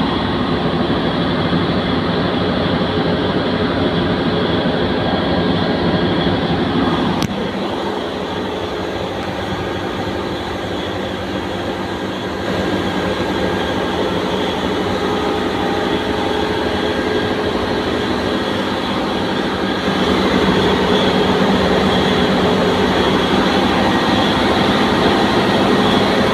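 A ship's engine-room air compressor running, a loud, steady mechanical din with many steady tones. About seven seconds in a sharp click comes and the sound drops a little, then it steps louder again around twelve and twenty seconds in.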